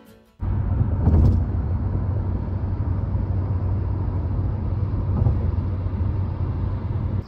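Steady low rumble that starts abruptly just under half a second in and holds at an even level.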